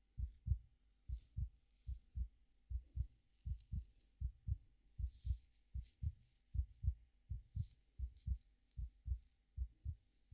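Steady heartbeat, each beat a low double thump (lub-dub), a little over one beat a second. Soft, irregular rustling of fingers or a brush through hair runs over it.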